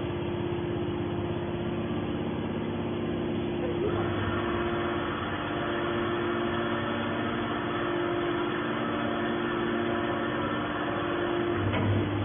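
Hydraulic scrap baler running: a steady machine hum from its motor and hydraulic pump, with a hissier layer joining about four seconds in.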